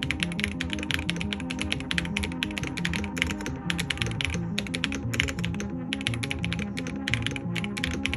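Fast typing on the LTC Nimbleback NB682 PRO 65% mechanical keyboard: a rapid clatter of key presses, several a second, with two brief pauses. Background music plays underneath.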